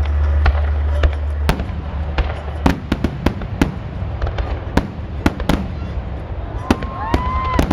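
Aerial fireworks bursting: a rapid, irregular run of sharp bangs and crackles, with a deep rumble under them for the first couple of seconds.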